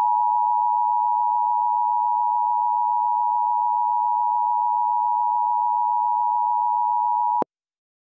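Emergency Alert System attention signal: the two-tone alert (853 Hz and 960 Hz sounded together), a steady, loud, harsh tone that cuts off suddenly near the end, about eight seconds long.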